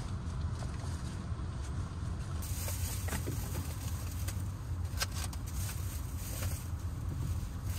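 Honda Freed+ running, a steady low rumble heard inside the cabin, with a few light clicks.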